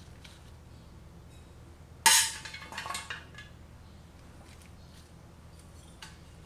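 Metal tongs clanking against a stainless steel pan about two seconds in: one sharp ringing strike followed by a few lighter clinks over the next second. A small click near the end.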